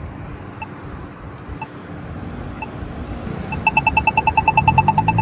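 Polara iNS2 accessible pedestrian signal push button ticking: a slow locator tick about once a second, then about three and a half seconds in it switches to a rapid, pitched tick of about ten a second, the walk-phase tick. Near the end, a vehicle engine rises underneath.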